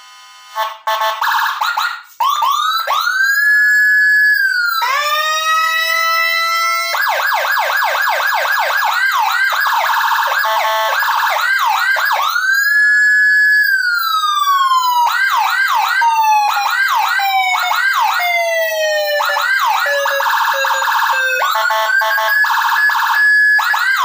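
Custom 60-watt Whelen-style dual-tone electronic siren module sounding through small horn speakers, switched through its tones. A short pulsing buzz opens, then slow rising-and-falling wails alternate with fast yelps, often two sweeping tones at once, and near the end a steady warbling high tone.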